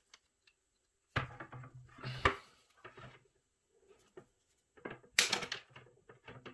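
Insulated diagonal side cutters biting through 10 mm² single-core copper cable (PV1 10), with sharp snips about two seconds in and again about five seconds in, and the cable rustling as it is handled. The cut goes through without strain.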